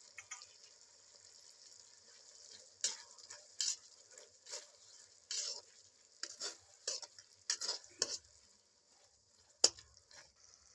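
A spoon scraping and knocking against a kadhai in irregular strokes, stirring melon seeds into melting jaggery, over a steady sizzling hiss. One sharper, louder knock comes near the end.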